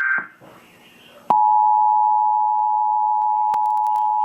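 An Emergency Alert System broadcast: the end of a data-header burst of screeching tones, a short pause, then about a second in the steady two-tone attention signal starts and holds. It announces a tornado warning. A few faint clicks come near the end.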